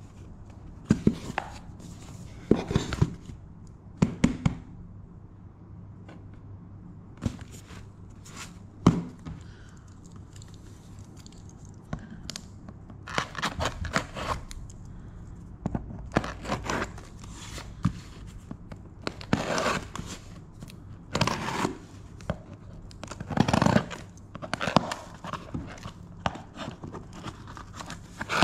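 Clear plastic packing tape on a small cardboard box being slit with a blade and pulled loose: irregular scraping, tearing and crinkling, with knocks of the cardboard being handled.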